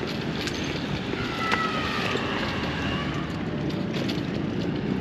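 Airliner's engines running at the airport while it warms up for take-off, with wind on the microphone; a faint high whine comes and goes about a second in.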